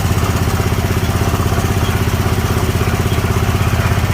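Snapper Pro 48-inch zero-turn mower's engine running steadily with an even, fast firing pulse. It holds its speed without dying down, which the owner puts down to the Seafoam treatment clearing up a partly clogged carburetor.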